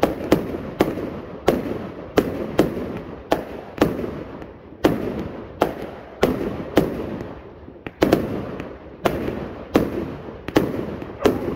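Slick Willy 100-shot firework going off in a steady string of sharp bangs, about one every half to three-quarters of a second, each trailing off before the next.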